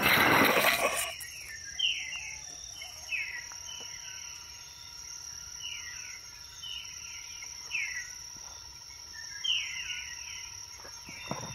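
Wild birds calling, a run of short whistled notes that each fall in pitch, repeated every second or so, over a steady high-pitched insect drone. A loud rush of noise fills the first second.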